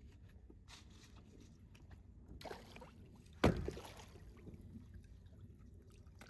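Water sloshing and lapping around a small boat, with one sharp knock about halfway through, the loudest sound here.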